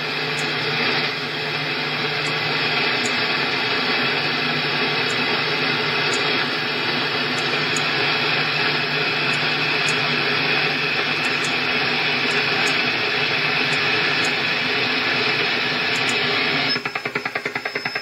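Shortwave receiver static from a WebSDR tuned in the 20-metre amateur band, a steady hiss. About a second before the end, a rapid even pulsing begins: an over-the-horizon-radar-like signal that the uploader likens to the Russian Woodpecker.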